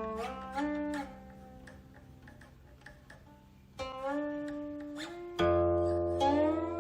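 Guqin (Chinese seven-string zither) played solo: plucked notes whose pitch slides upward as the left hand glides along the string. The middle stretch is soft, and a louder, deeper note comes in about five seconds in.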